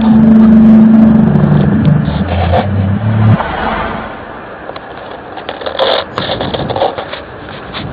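A low, steady droning hum with a couple of held tones, of the kind reported as a strange sound from the sky. It cuts off abruptly about three and a half seconds in, leaving a noisy outdoor background with scattered clicks and clatter.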